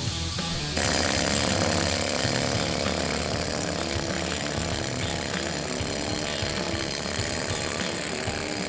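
A handheld power tool working at the old weld on a steel armour hull plate, a harsh, steady noise that starts about a second in, over background music.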